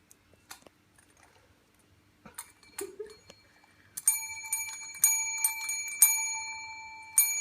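A small metal bell rung by a miniature dachshund on command: a few faint taps and clicks at first, then from about four seconds in a quick series of strikes, each ringing on and fading slowly.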